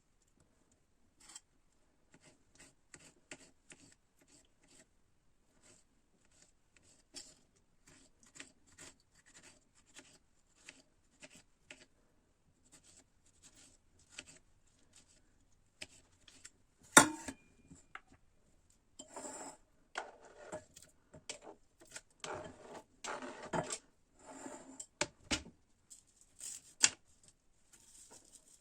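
Short scratching strokes repeated about one to two times a second, growing busier and louder in the last third, with one sharp click about 17 seconds in.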